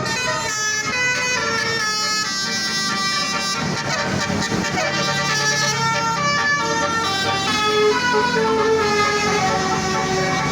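Bus basuri melody horn playing a tune: a run of held horn notes that step up and down in pitch.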